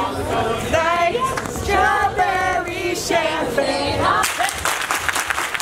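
A party crowd singing along together out loud, with no music heard under the voices: the music at a silent disco plays only in the dancers' headphones. Clapping joins in from about four seconds in.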